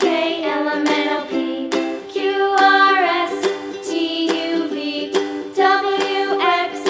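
Background music: a light tune of plucked notes at an even pace.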